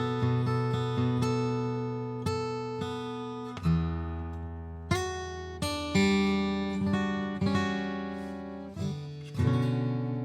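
Taylor steel-string acoustic guitar with a solid Sitka spruce top and layered walnut back and sides, played unaccompanied. Chords are struck and left to ring out and fade, with a new chord about every second in the latter part.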